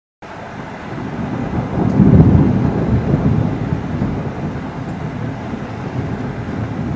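Thunder rolling: a low rumble that starts abruptly, swells to its loudest about two seconds in, then slowly fades.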